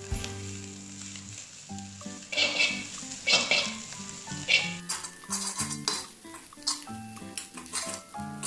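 Metal wok spatula scraping and tossing egg noodles, scrambled egg and fish balls around a wok over sizzling oil. The scrapes and clinks of metal on the pan come thicker in the second half.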